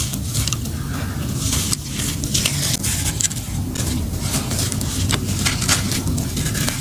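Hands crumbling and rubbing dry, crumbly molded shapes of gritty dust, with loose grit pouring and trickling down. It makes a dense run of small gritty crackles and scrapes over a steady low rumble.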